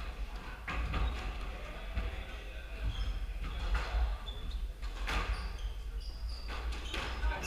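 Squash ball being hit and bouncing off the court, several sharp knocks with a cluster about five seconds in, with short sneaker squeaks on the hardwood floor over a steady low hum.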